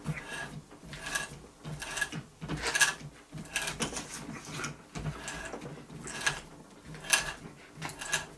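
Hand tap in a bar tap wrench cutting a 9/16 UNC thread into 303 stainless steel: short scraping, clicking strokes of metal on metal, roughly one a second, as the wrench is worked back and forth.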